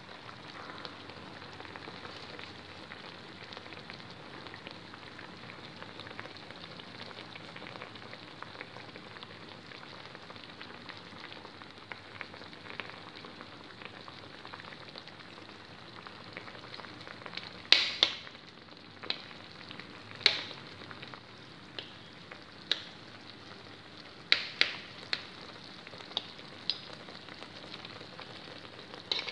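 Fish simmering in soy sauce in a metal wok, with a steady sizzle and bubble. From a little past halfway, a metal spoon knocks and scrapes against the pan a dozen or so times.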